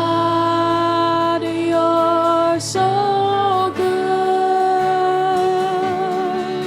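Slow church worship music with long held notes that change pitch every second or two.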